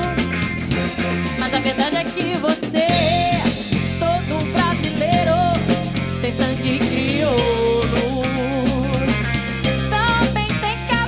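Band music with a steady drum-kit beat, guitar and other instruments.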